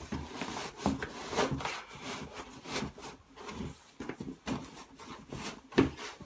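Hands rubbing, pressing and scraping over the carrycot's fabric and styrofoam base as the base is pushed down into the bottom of the bag: an irregular run of rustles and scrapes with a few light knocks.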